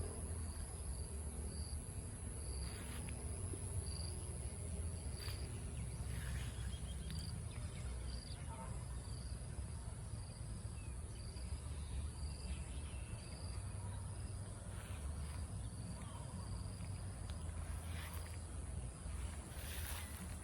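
Insects calling: a steady high-pitched drone with a short chirp repeated about twice a second, over a constant low rumble and a few brief rustles.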